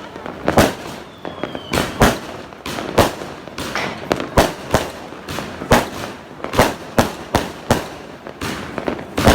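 Fireworks going off in rapid succession, sharp bangs about twice a second, each with a short echoing tail, and a faint whistle about a second and a half in.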